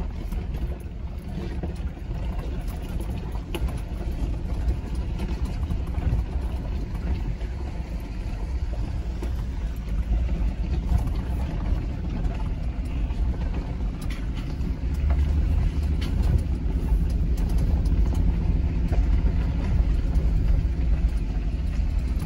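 Jeep driving slowly on a gravel road, heard from inside the cabin: a steady low engine and tyre rumble over the loose gravel, growing a little louder about two-thirds of the way through.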